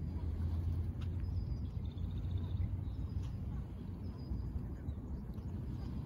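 Faint, high, short chirps of small birds, with a brief pulsed trill about two seconds in, over a low steady outdoor rumble.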